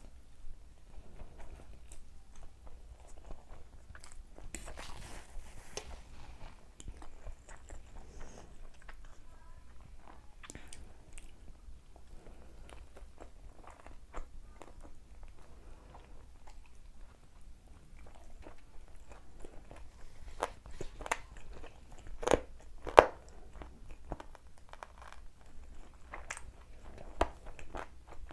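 Close-miked mouth sounds of a person eating: chewing Maggi instant noodles, then biting and chewing a fried chicken lollipop, with many small wet clicks and smacks. Two sharper, louder smacks come about three quarters of the way through.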